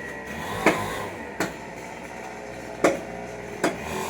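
A dao chopping knife striking into tree wood four times, as sharp separate chops at uneven intervals.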